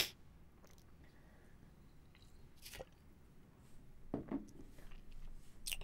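Faint mouth sounds close to a desk microphone as a man drinks from a bottle: a few soft swallows and mouth clicks.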